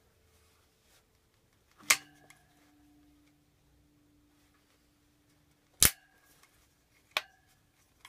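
Tabs of a Tannus airless tire being pushed with a tire tool and snapping into the rim of a 16-inch bicycle wheel: three sharp snaps a few seconds apart, each followed by a short ringing tone. Each snap is a tab locking into place.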